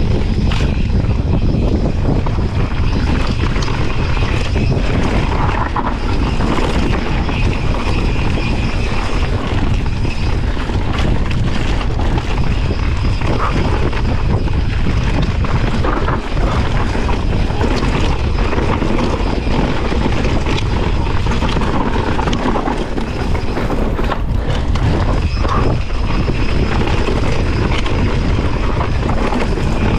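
Steady wind buffeting the microphone, a loud low rumble with the rush of a boat moving through water beneath it.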